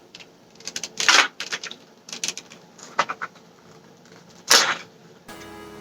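Small plastic clicks and crinkling as a stuck part is worked off a Nendoroid figure, with a louder rustle about four and a half seconds in. Background music comes in near the end.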